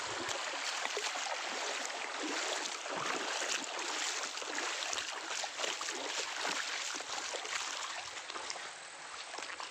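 Stream water rushing and splashing over rocks: a steady, even hiss with small splashes.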